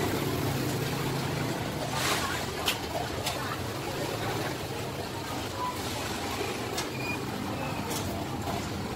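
Steady street traffic noise with voices in the background, and a few short, sharp snips of steel scissors cutting through eel flesh and bone.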